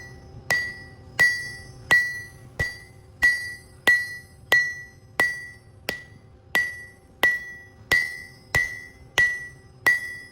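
Hand hammer striking steel on an anvil in a steady rhythm of about one and a half blows a second, each blow ringing out with a clear high tone that fades before the next: forging the bearing steel.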